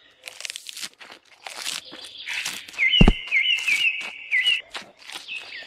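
Fresh green leaves crunching and tearing in short, crisp strokes, with a high chirping call repeated about four times midway through.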